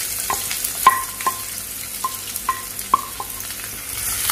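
Onions sizzling as they fry in hot oil in a pan while being stirred, with a spoon knocking against the pan several times in short, ringing clinks.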